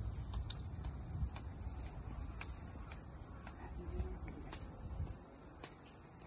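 A steady high-pitched hiss in the background, with a few faint ticks and a low rumble beneath it.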